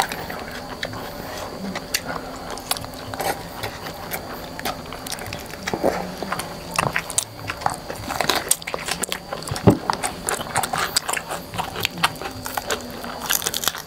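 Close-miked eating: people biting and chewing crispy fried chicken and raw cucumber, a scatter of short crunches and clicks.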